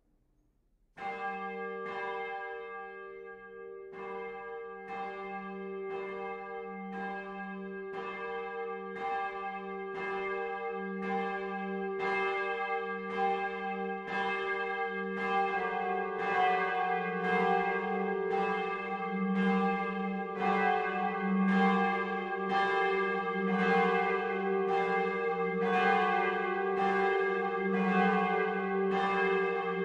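A large swinging cathedral bell starts ringing about a second in, its clapper striking roughly once a second with long ringing tones. The strokes grow steadily louder, and the ringing grows fuller from about halfway.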